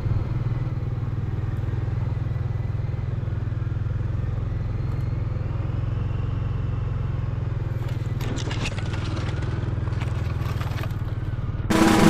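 Steady low rumble of wind on the microphone while walking through fresh snow, with faint crunching of footsteps in the snow. Acoustic guitar music comes in just at the end.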